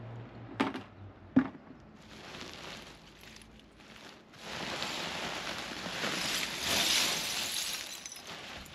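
Broken glass bottle pieces being poured into the base of a brick oven for heat insulation: two sharp clinks early, then a long rushing pour of shards from about halfway, loudest near the end.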